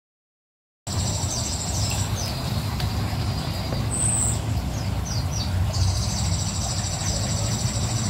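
A steady low background rumble starts suddenly about a second in, with a continuous high insect trill over it and a few short, high chirps.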